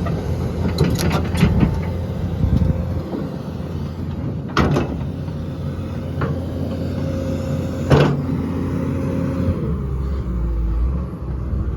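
2016 XCMG XE360U hydraulic excavator's Cummins diesel running under load, with a steady hydraulic whine that stops near the end as the engine note drops. Two sharp knocks, about 4.5 and 8 seconds in, stand out above the engine.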